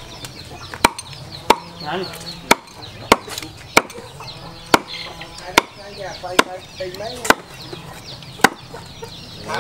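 Large knife chopping roast pork on a round wooden chopping board: about ten sharp chops, irregularly spaced at roughly one a second.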